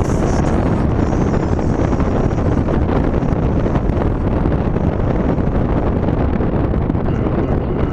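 Heavy wind rushing and buffeting into the cabin of a moving 4th-generation Ford Mustang through a passenger window left slightly open, with the car's road and engine noise underneath. The noise is loud and steady throughout.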